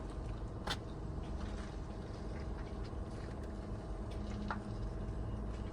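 Two short, sharp clicks of hand tools working on steering-wheel screws, one under a second in and one near the end, over a steady low hum.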